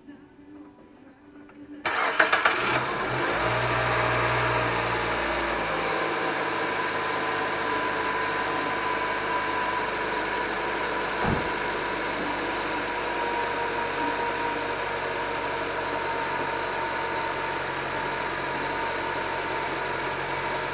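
Nissan Note E11's four-cylinder petrol engine started after a spark plug change: a brief crank about two seconds in, then it catches, runs at a raised rev for a few seconds and settles to a steady idle. This is the first start on the fresh plugs with the intake manifold refitted.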